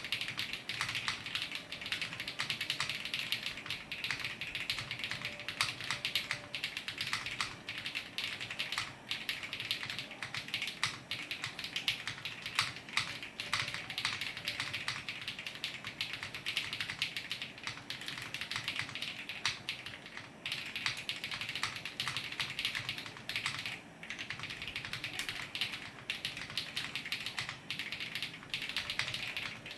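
Monsgeek M1 mechanical keyboard being typed on continuously: a dense, fast run of keystrokes with a few brief pauses.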